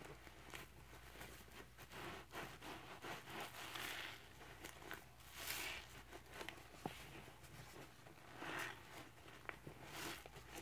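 Scrub Daddy sponges squeezed by rubber-gloved hands in a bucket of cleanser suds: wet squishing and crackling foam, coming in swells every couple of seconds, with small clicks between.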